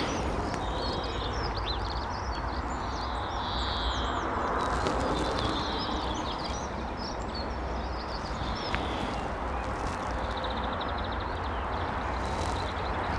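Small birds chirping and twittering over a steady background noise, with a rapid trill starting about ten seconds in.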